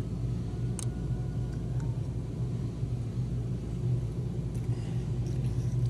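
Steady low mechanical hum of a running motor, with a single sharp click about a second in.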